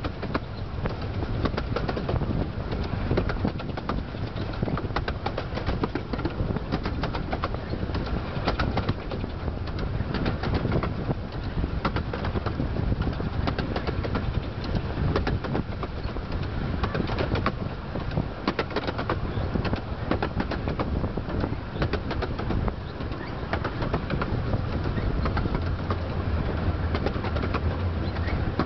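15-inch-gauge miniature steam train running and gathering speed, heard from one of its carriages: a steady low rumble with a dense patter of clicks from wheels on the track.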